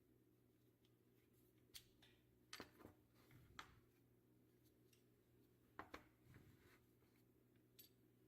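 Faint, scattered clicks and light taps over a steady low hum: one about two seconds in, a small cluster around three seconds, a pair about six seconds in and a last one near the end.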